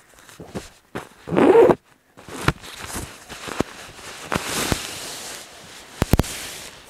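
Nylon stuff sack being opened and handled: a drawstring cord pulled through its toggle, with short clicks and nylon fabric rustling. A louder scraping rasp comes about one and a half seconds in, and a quick double click near the end.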